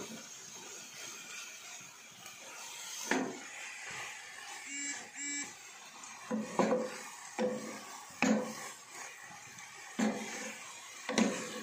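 Wooden spatula scraping and knocking against a granite-coated wok while rice vermicelli and vegetables are stir-fried, about six strokes a second or two apart, over a faint steady sizzle.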